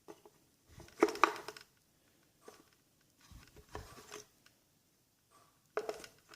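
Steel machinist's parallels clinking and knocking against each other as they are handled: a few separate sharp knocks, the strongest about a second in and again near the end, with light rubbing between.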